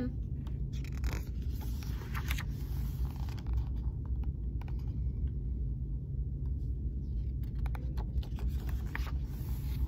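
Paper pages of a hardcover picture book being turned and handled: a few short rustles and scrapes in the first few seconds and again near the end, over a steady low hum.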